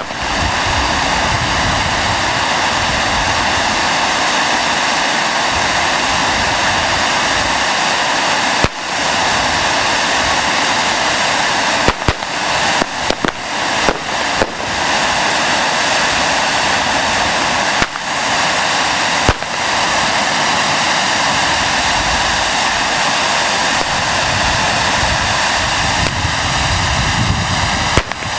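Fireworks going off: a loud, steady hiss runs throughout, broken by sharp bangs. One bang comes about nine seconds in, a quick run of about five follows between twelve and fifteen seconds, two more come near eighteen and nineteen seconds, and one comes near the end.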